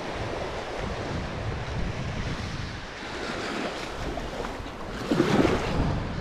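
Small surf washing up a sandy beach with wind buffeting the microphone, and a louder splash about five seconds in as a small queenfish is let go into the shallow wash.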